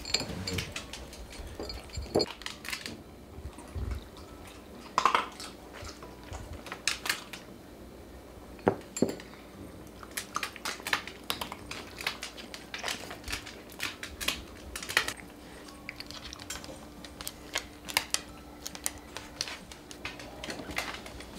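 Irregular sharp clicks and clinks, like dry pet food and bowls knocking against ceramic, as cats eat and move about on a wooden floor, over a faint steady hum.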